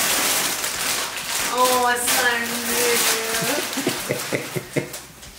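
Wrapping paper tearing and crinkling as a large gift is unwrapped, then a woman's long, drawn-out exclamation, followed by a few light knocks.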